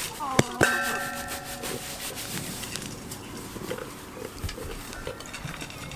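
Two sharp knocks, then a farm animal's call held on one pitch for about a second and a half. A few short, soft low calls follow later.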